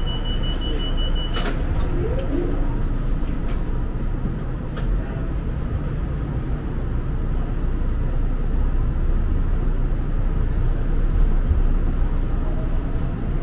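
Inside a St. Louis MetroLink light-rail car under way: a steady low rumble of wheels and running gear. A high steady beep stops with a sharp click about a second and a half in, and a few more clicks and rattles follow.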